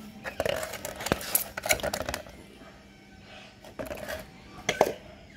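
A black plastic plant pot and a metal garden trowel being handled during repotting: a run of knocks, clicks and scrapes, then a second cluster about four seconds in and a sharp knock at the end.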